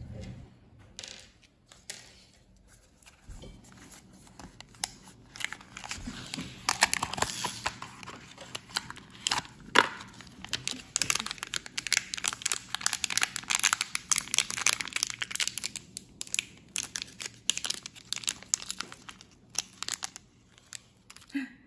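A blind box and the bag inside it being opened by hand: crinkling, rustling and tearing of the packaging with many small clicks. It is sparse for the first few seconds and busiest from about a third of the way in until near the end.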